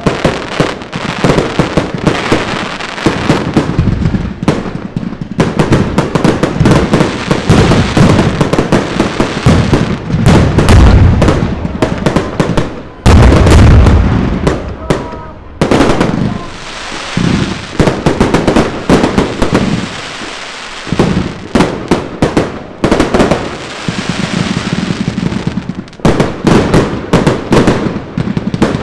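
Fireworks going off in rapid succession: dense crackling and popping, with heavy booms about a third and halfway through.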